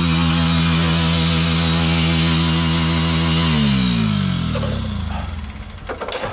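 Motorcycle engine still running steadily with the bike on its side after the crash, then winding down in pitch and stopping about four seconds in. A few light knocks and clicks follow near the end.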